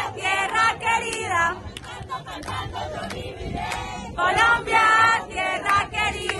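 Crowd of protesters chanting and shouting together, loud phrases at the start and again about four seconds in, with a quieter stretch between.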